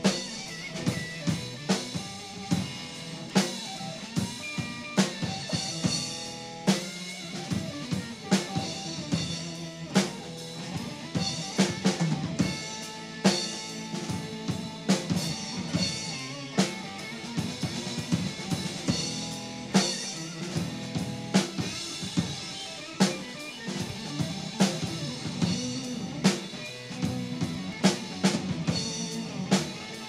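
Live blues-rock band playing an instrumental stretch: a drum kit keeps a steady beat of bass drum and snare hits under a hollow-body electric guitar.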